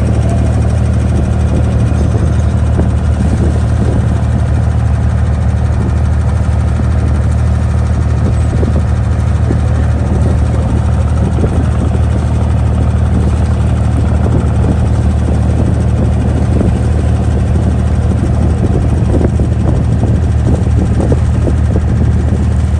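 Boat engine running at a steady pace, a low, even drone heard from on board a creek water taxi.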